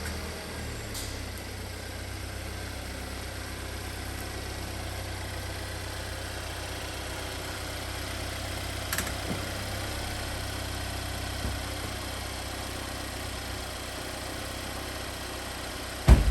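An engine idling steadily with a low, even hum. A few light clicks sound over it, and there is one loud knock near the end.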